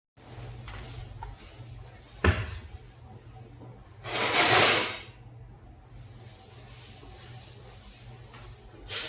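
A heavy knock, likely a cleaver coming down on a wooden chopping block, about two seconds in. About two seconds later comes a loud rushing, scraping noise lasting about a second, and a shorter one at the end, over a faint steady low hum.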